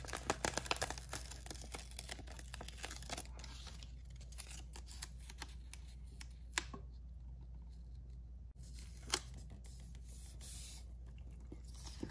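Paper crackling and rustling as a planner sticker is peeled from its backing sheet, dense over the first few seconds. Then scattered light clicks and a couple of sharp ticks as the sticker strip is laid down and pressed onto the planner page.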